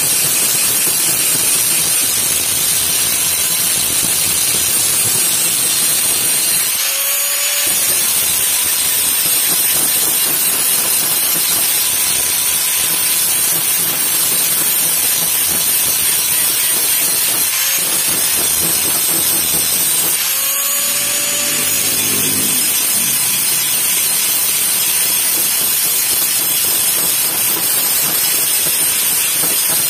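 Electric angle grinder with an abrasive disc grinding a steel knife blade: a steady, loud grinding hiss, part of grinding down an old blade for restoration. The motor's pitch shifts briefly a few times, about a quarter of the way in and again around two-thirds through.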